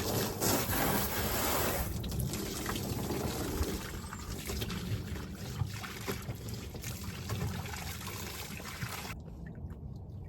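Water pouring and trickling steadily into a container, strongest in the first couple of seconds; about nine seconds in the sound turns abruptly duller.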